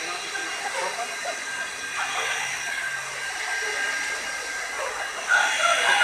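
Handheld electric powder blower running with a steady high whine and hiss as it blows Stalosan disinfectant powder. Near the end a louder sound with wavering, falling pitch joins in over it.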